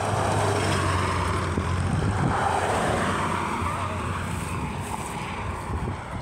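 A motor vehicle going past on the road, its engine hum and tyre rush swelling up and then slowly fading over a few seconds.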